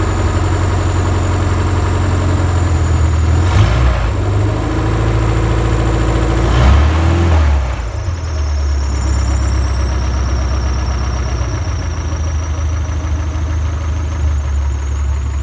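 A freshly repaired BMW 2002's M10 2.0-litre inline-four idling with its air cleaner off. The revs rise briefly twice, about three and a half and seven seconds in, then settle back to a steady idle.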